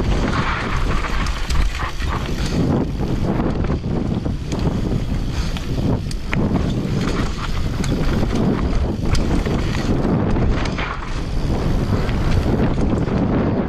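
Mountain bike descending a rough trail at speed: wind rushing over the microphone and tyres rolling over dirt and rock, with frequent sharp clatters and knocks from the bike over bumps.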